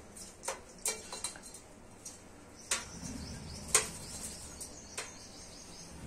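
An Alexandrine parakeet bathing in a shallow steel plate of water: a scatter of sharp little splashes and taps, then from about halfway a steadier low splashing rustle as it ruffles and flaps its wet wings in the water.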